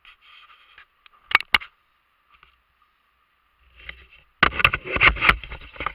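Knocks and bumps against a plastic kayak: two sharp knocks about a second and a half in, then a loud clatter of knocks and rumbling near the end, over a faint steady trickle of water running through the creek shallows.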